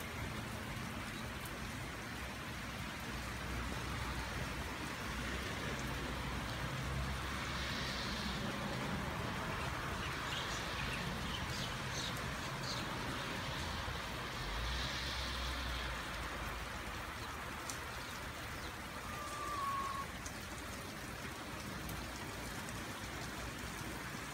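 Steady rain falling, an even hiss of rain on surfaces with a few faint ticks of drops. A brief faint falling note sounds late on.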